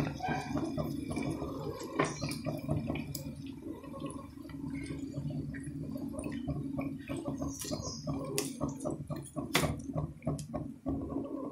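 Marinated chicken pieces sizzling in hot oil and butter in a pan, with frequent irregular pops and crackles over a steady low hum.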